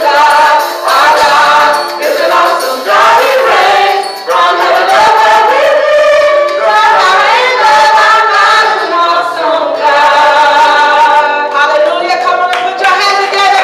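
Female voices singing a worship song together into microphones, with long, wavering held notes.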